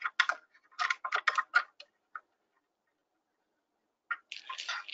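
Light clicks and rattles as the thumb screws holding a satellite dish reflector segment are tightened by hand: a run of clicks in the first second or two, a single click, a pause, then another cluster near the end.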